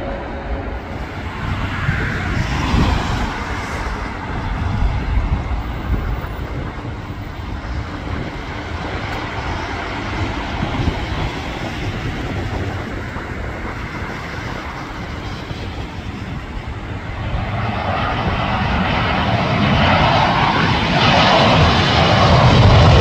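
Jet airliner engines rumbling, then growing steadily louder over the last several seconds as a British Airways Airbus A320-family jet approaches to land.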